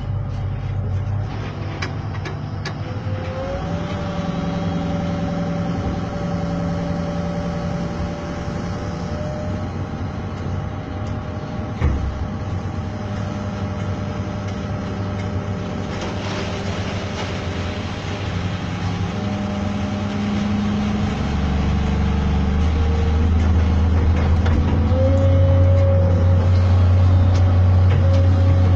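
Heavy construction machine's engine running, its pitch shifting up and down, with one sharp knock about twelve seconds in. A deeper engine rumble grows louder from about twenty-one seconds in.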